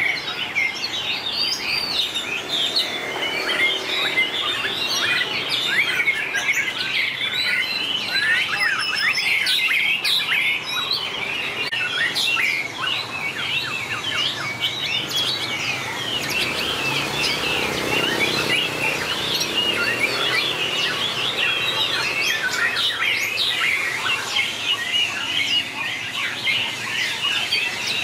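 White-rumped shama singing competitively: a long, unbroken, varied song of rapid whistles, rising and falling glides and trills.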